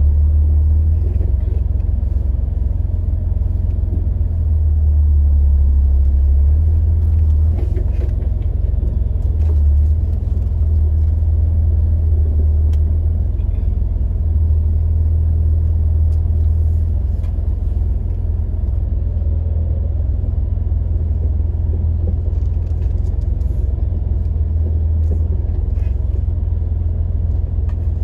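Jeep engine running at low speed in a steady low rumble that swells and eases a little as the vehicle crawls up a rocky off-road trail, with a few faint knocks.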